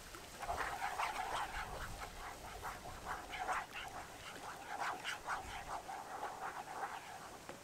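Wooden spoon stirring hot cream and garlic in a Trangia sauté pan: a quick, irregular run of short scraping and sputtering strokes that starts about half a second in and stops just before the end.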